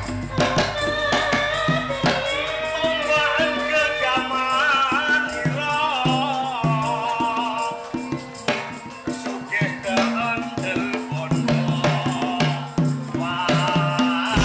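Gamelan accompaniment for ketoprak theatre: a singing voice carries a winding melody over sustained gamelan tones and a pulsing low part, with sharp rattling percussion clicks throughout. The voice is strongest in the first half and comes back near the end.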